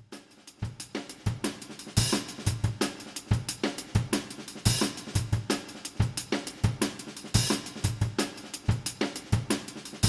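Background music: a drum-kit beat with kick, snare and hi-hat, and a cymbal crash every few seconds. It starts about half a second in.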